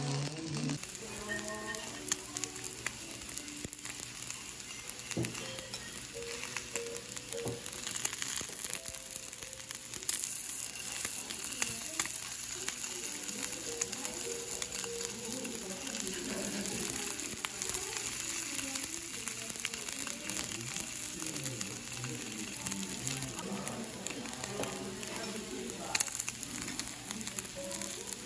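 Slices of marbled beef sizzling on a small tabletop grill plate, a steady frying hiss. Soft background music plays underneath.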